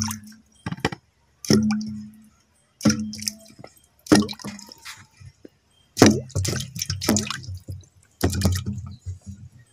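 Whole potatoes dropped one by one into a steel basin of water, each landing with a heavy plop and splash, about ten in all at irregular intervals.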